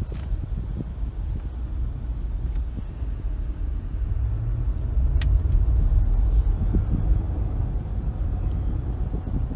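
A car on the move: a steady low rumble of engine and road noise that swells a little about halfway through.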